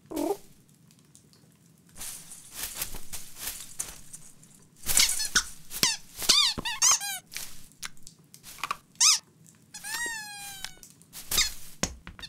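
Cartoon sound effects: a cat rustling through Christmas tree branches and tinsel, then a quick run of high squeaky chirps from a toy bird ornament being pawed. Later comes one long falling squeak, with a few sharp taps in between.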